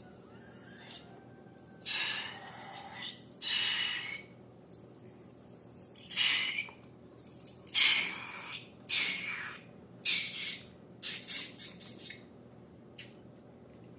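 Wet, squishy slime sounds: about seven short splashy squelches, irregularly spaced a second or so apart.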